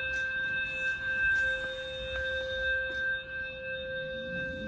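Fire alarm sounding a steady electronic alert tone at one unchanging pitch during an alarm test.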